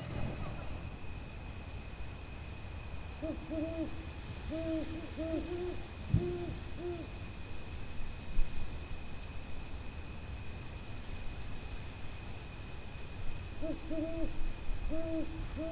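A pigeon cooing in phrases of short, low, rounded notes, one phrase a few seconds in and another near the end, over a faint steady high whine.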